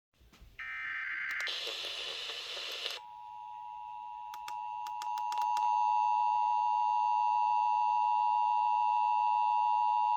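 A couple of seconds of harsh buzzing noise, then the Emergency Alert System attention signal: two steady tones at 853 and 960 Hz sounding together as one sour, buzzy tone. It starts faint and steps up in loudness a few seconds in, with a few clicks over it, and holds for about eight seconds, the alert tone that opens a required monthly test.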